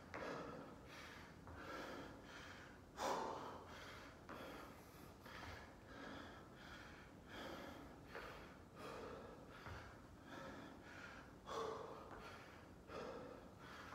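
A person breathing hard during a high-intensity exercise interval: a run of short, sharp exhales about once a second, with stronger gasps about three seconds in and again near the end.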